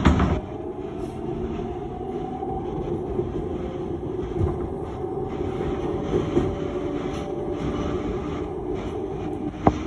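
New York 7 express subway train running along a station, heard from inside the car: a steady rumble of wheels on rail with a faint motor whine. A loud knock comes right at the start and a sharp click near the end.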